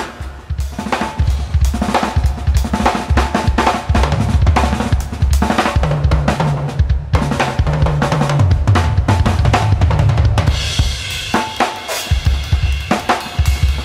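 Acoustic drum kit being played: bass drum, snare and hi-hat with a fill down the toms in the middle. Crashes on a dry Istanbul Mehmet 20-inch Legend Dry Series crash/ride leave a cymbal wash ringing a little after ten seconds in.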